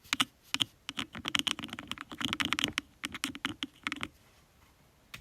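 Fingernails tapping on makeup cosmetic containers. A few separate taps, then fast rattling runs of taps that stop about four seconds in.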